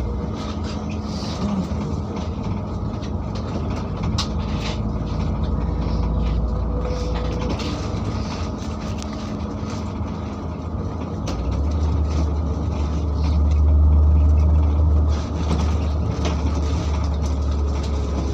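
LiAZ-5292 city bus heard from inside the passenger cabin while driving: a steady low engine and road drone with light clicks and rattles. The drone grows louder about twelve seconds in and drops back suddenly a few seconds later.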